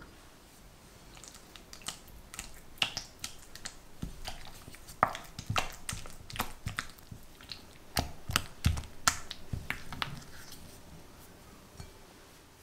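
Spatula stirring and folding soft cream cheese mixture in a glass bowl: irregular sticky squelches and sharp clicks of the spatula against the glass, fading off near the end.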